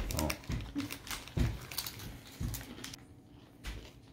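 A plastic snack wrapper being crinkled and torn open, with irregular crackles and a few dull thumps, quieter near the end.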